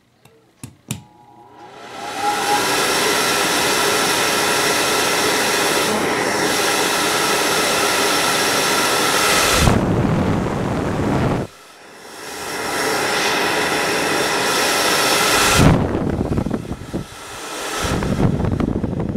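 Fasco draft-inducer blower with a small squirrel-cage wheel, switched on after a couple of clicks and spinning up within about two seconds. It then runs with a loud whine over a rush of air, which PANN likens to a hair dryer. Just past halfway the sound drops away suddenly and builds back up over a couple of seconds, with low rumbling gusts around that drop and again near the end.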